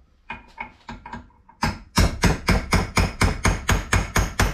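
Hammer striking the flat side of a chisel, knocking a steel tab washer's lock tabs over against the torqued swivel pin nut on a Classic Mini front hub. A few light taps come first, then, about a second and a half in, a fast even run of sharp metallic blows, about five a second.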